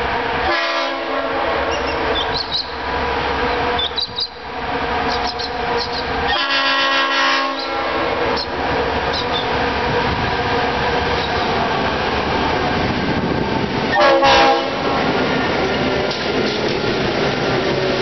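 Diesel locomotive horn on a freight train sounding three blasts, the second the longest and the last the loudest, over the steady running of the train's diesel locomotives as they approach and begin to pass.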